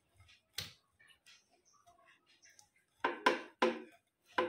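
Wooden rolling pin knocking against a wooden rolling board while a sticky peanut-jaggery chikki mixture is rolled flat: one light knock about half a second in, then three quick ringing knocks about three seconds in and one more near the end.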